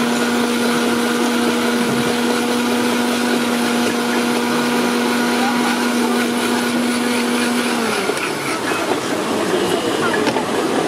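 Electric blender motor running steadily with a humming whine as it blends watermelon into juice, then switching off suddenly about eight seconds in, leaving only background noise.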